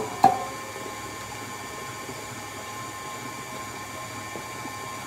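KitchenAid Artisan stand mixer running steadily with a whine, mixing thick gluten-free bread dough. Two sharp knocks at the start as a metal loaf pan is set down on the stone counter.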